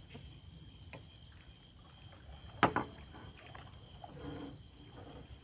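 A single short, sharp knock about halfway through, over faint quiet background with a steady high tone and a few small clicks: the kind of sound made handling a fishing net in a small boat.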